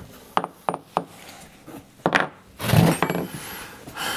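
Hand tools clicking, knocking and scraping against a petrol chainsaw's engine while a spark plug that is screwed in far too tight is being worked loose. There are a few sharp clicks in the first second, then two longer scraping rasps about two and three seconds in.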